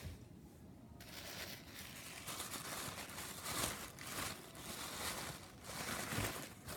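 Packaging crinkling and rustling as it is unwrapped, starting about a second in and going on in irregular bursts.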